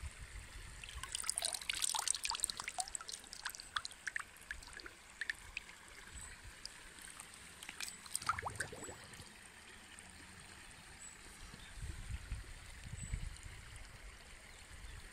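Shallow river water splashing and gurgling around a camera sealed in a waterproof plastic bag as it is dipped in, heard from close against the bag. Clusters of sharp splashes come in the first few seconds and again about eight seconds in, with low rumbling thumps near the end.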